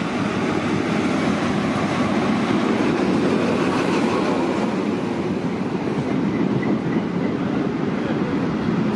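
NSW TrainLink XPT diesel passenger train running past along the platform: the power car goes by close, then the carriages follow with a steady rumble of wheels on rail.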